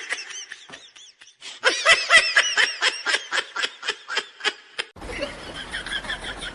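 High-pitched laughter: a rapid string of short cackles, about four a second. It breaks off about five seconds in, giving way to a steady noisy background.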